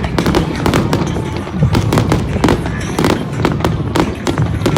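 Fireworks going off in quick succession, with many sharp bangs and crackles several times a second over a dense low rumble, with music playing underneath.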